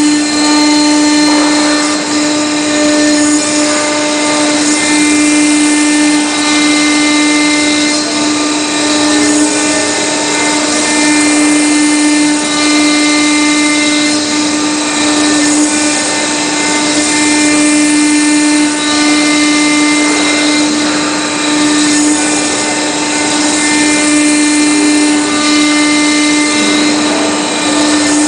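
CNC stone-router spindle running at a steady pitch while its engraving bit grinds into a wet marble slab, a constant hum with higher whining overtones over a gritty hiss.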